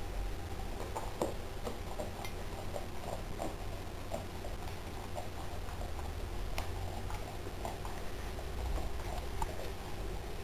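Boxer dog chewing on a raw fish: irregular small clicks and smacks, a few a second, over a low steady hum.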